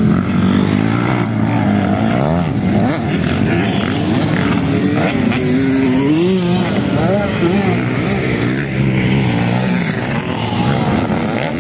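Several motocross dirt bike engines revving on a dirt track, their pitch rising and falling as riders throttle on and off over the jumps.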